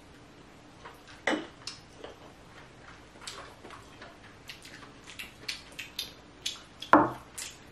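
Close-up king crab eating sounds: short clicks and crackles of chewing and of crab shell and meat being picked apart by hand. The clicks come more often after the first few seconds, and the loudest knocks fall about a second in and near the end.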